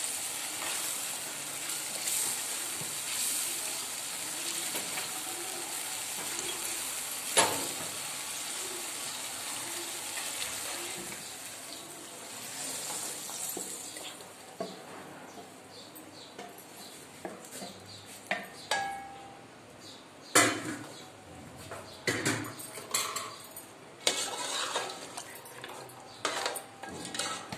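Tomato masala sizzling in oil in a steel frying pan as it is stirred with a wooden spoon, with one sharp click about seven seconds in. About halfway the sizzling fades, and a metal spoon and ladle scrape and knock against the pan and a large aluminium pot as the masala is scraped into the pot and stirred.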